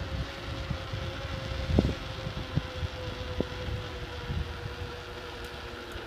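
Wind buffeting the microphone over the low rumble and rattle of a bicycle riding a rough dirt trail, with irregular knocks from the bumps and one louder thump about two seconds in.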